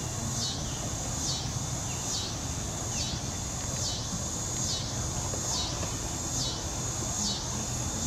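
Insects buzzing in a steady high-pitched chorus that dips in pitch about once a second, over a low steady rumble.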